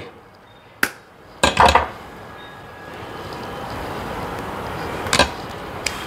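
Sharp metal clicks and taps of pliers working a small car door-lock part: one about a second in, a louder quick cluster half a second later, and two more near the end, over a faint steady background noise.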